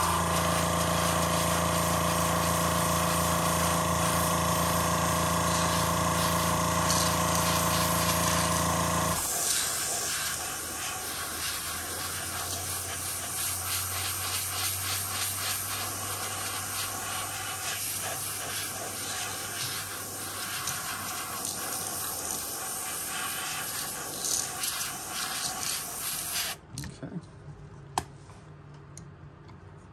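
Compressed air blowing steadily through an airbrush to dry the fresh paint on a lure, a loud hiss. A motor hums under it for about the first nine seconds and then cuts off. The hiss stops abruptly a few seconds before the end, leaving faint clicks.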